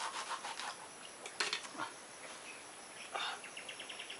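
A knife clicking and scraping against a young coconut on a rock as it is cut open, with a few sharper single knocks, then a quick even run of ticks near the end.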